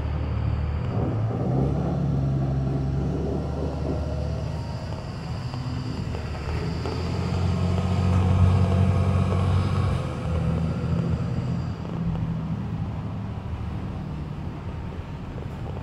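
Cummins ISB 5.9-litre diesel engine of a Thomas MVP EF school bus pulling the bus along, heard from inside the cabin. It grows louder to a peak about eight to nine seconds in, then eases off.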